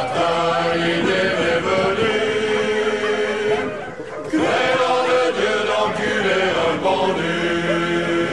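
Voices singing held notes in harmony without words, a cappella, with a short break about four seconds in.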